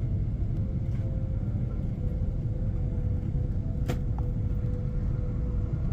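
Steady low rumble of an airliner's cabin in flight, with a faint steady hum over it and one sharp click about four seconds in.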